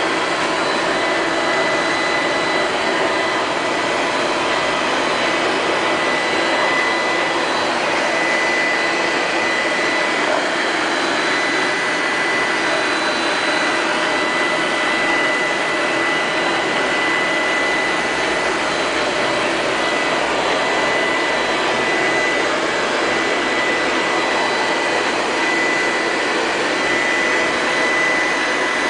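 Liectroux Q5 robot vacuum cleaner running: a steady whir from its suction fan with a thin, steady high whine over it.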